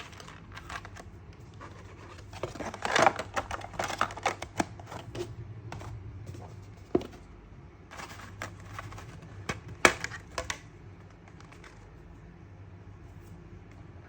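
Plastic and cardboard packaging of a boxed action figure being handled and opened: sharp clicks, scrapes and rustles in two bursts, one about two to five seconds in and another around eight to ten seconds in.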